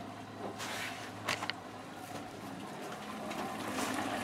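Liquid nitrogen boiling around a steel locking-hub part in a cooler: a faint, steady bubbling hiss that grows louder near the end, with two light clicks about a second and a half in. The steel is still cooling down in the nitrogen.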